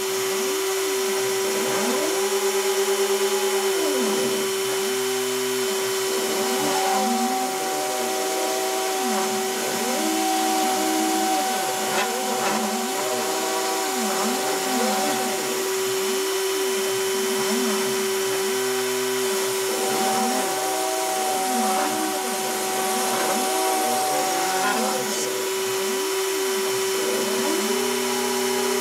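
Hobby CNC router cutting into cardboard: the rotary-tool spindle runs with a steady whine while the stepper motors' hum rises and falls in pitch over and over as the machine speeds up and slows down along each stroke of the letters.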